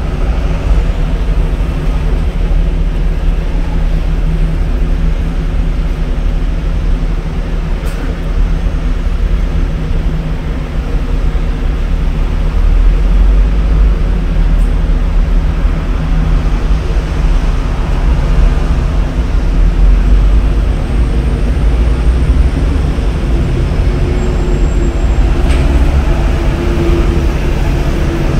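A steady, loud low engine drone, unchanging throughout, with a few faint clicks.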